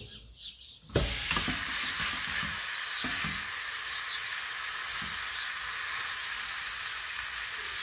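Thin layer of raw ground beef on a flour tortilla sizzling in olive oil as it goes meat-side down into a hot nonstick frying pan. The sizzle starts suddenly about a second in and then holds steady. It is the little noise that shows the pan is hot enough; without it the pan would be cold.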